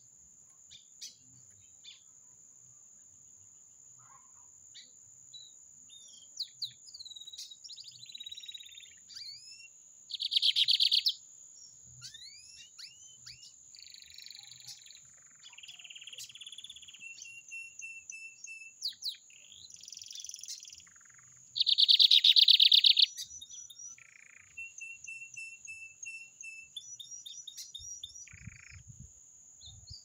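Caged lined seedeater (bigodinho) singing its rapid-fire 'metralha' song: scattered quick chirps and whistled glides, with two loud, fast buzzing trills about ten and twenty-two seconds in. A steady high insect whine sounds beneath it.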